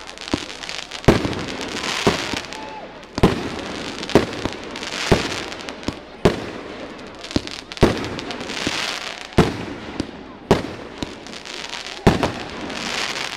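Fireworks going off at close range: a sharp bang about every second, with crackling and hissing between the bangs.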